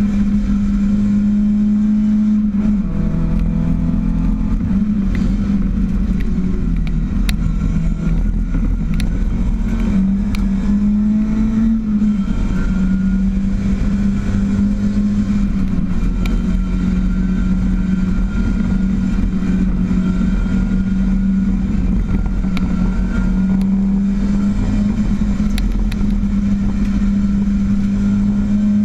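Ford Escort RS 2000 race car's engine running hard, heard from inside the cabin, its pitch dropping and picking up again a few times as the car is driven through the course.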